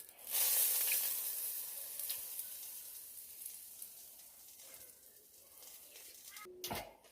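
A sizzling hiss that starts suddenly and slowly dies away, with a sharp click near the end.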